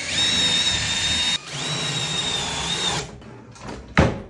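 Power drill running in two bursts of about a second and a half each, with a short pause between, whining at a steady pitch while drilling holes for cabinet knobs. A single sharp knock comes near the end.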